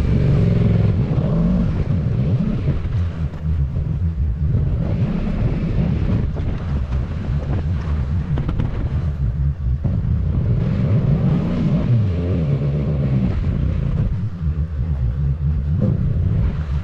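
2019 Yamaha MT-07's parallel-twin engine running through a Yoshimura R77 carbon-fibre exhaust while ridden, its pitch rising and falling with the throttle, with one clear rise and fall about twelve seconds in.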